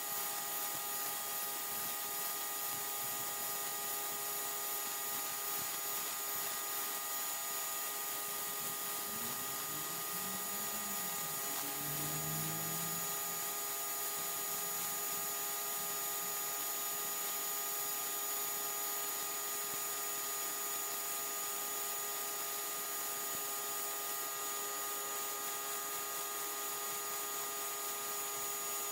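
Simoniz 1800 PSI electric pressure washer running steadily: a constant motor-and-pump whine made of several steady tones under the hiss of the high-pressure jet spraying dirt off concrete.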